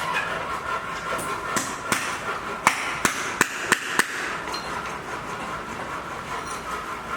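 About seven sharp knocks, like hammer blows, come in quick succession in the first half, roughly two or three a second. Under them runs a steady background hum with a faint high whine.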